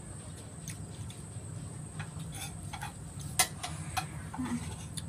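Light clicks and taps of eating by hand from a plate, a handful spread over a few seconds, the sharpest about three and a half seconds in, over a low steady hum.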